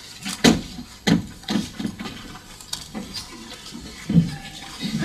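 Footsteps on a hard floor, sharp knocks about two a second, as a man walks up to a lectern, then a duller thump about four seconds in.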